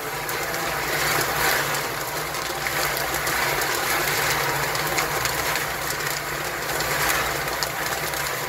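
OS-100 guided nut roasting machine running: a steady motor hum under a constant hiss and rattle of kernels tumbling and pouring off the turning drum vanes.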